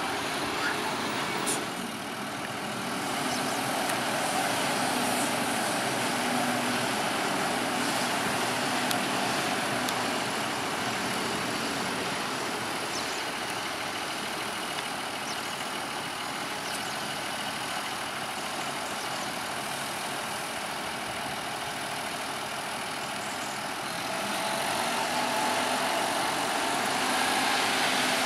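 Fendt 720 Vario tractor's engine running steadily while it tips a trailer load of chopped maize at the silage clamp; near the end the engine gets louder and its note rises as the trailer body is raised.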